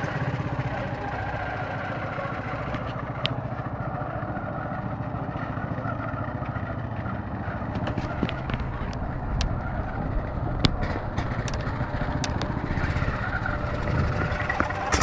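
Baja SAE off-road buggy's single-cylinder Briggs & Stratton engine running steadily as the buggy drives, with scattered sharp clicks and knocks from about eight seconds in.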